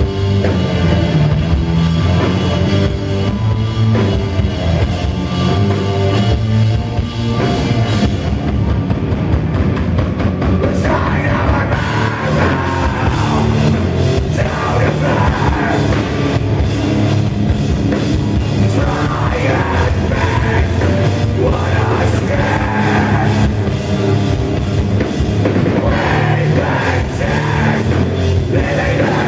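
A heavy metal band playing live, with distorted electric guitars, bass and a drum kit, loud and dense. The cymbals thin out for a few seconds about a third of the way in.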